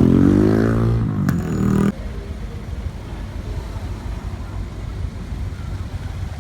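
A motor vehicle's engine revs up and then eases back. It cuts off abruptly about two seconds in, leaving a steady low rumble of traffic-like background noise.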